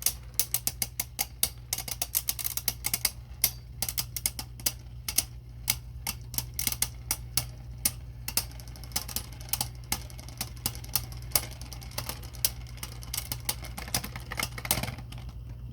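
Two Beyblade Burst tops, Archer Hercules and a hand-spun Geist Fafnir, clashing in a plastic stadium: rapid, irregular clicks and clacks of the tops striking each other and the stadium, several a second, over a steady low hum.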